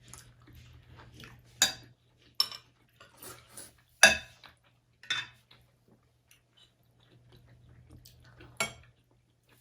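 A spoon knocking and scraping against a bowl during a meal: about five sharp clinks, the loudest about four seconds in, with faint eating noises between.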